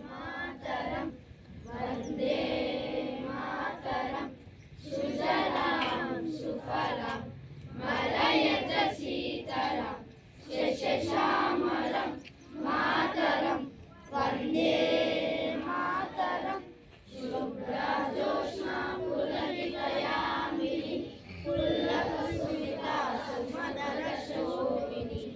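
A group of schoolchildren singing together in unison, phrase by phrase with short breaks between the lines.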